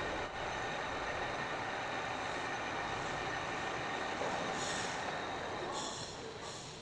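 Steady machine running noise with a hiss over it, and a few short hissing bursts near the end as the level eases off slightly.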